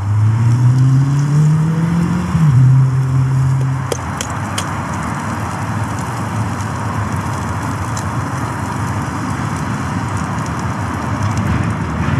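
A vehicle engine accelerating, its pitch rising for about two seconds, dropping at a gear change and holding until it stops about four seconds in. Under it and after it, a steady sizzle of steak frying in a pan on a gas stove, with a few sharp clicks about four seconds in.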